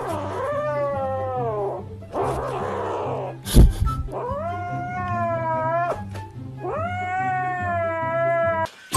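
Young gray cat yowling in three long drawn-out calls, the first falling in pitch and the last two rising then held, with a rough noisy stretch between the first two. One sharp knock sounds about three and a half seconds in.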